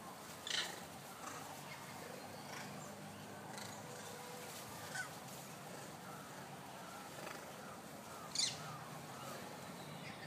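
Scattered short, high-pitched animal calls from the trees: a sharp shriek about half a second in, another near the middle, and the loudest near the end, with a run of short falling chirps in the second half.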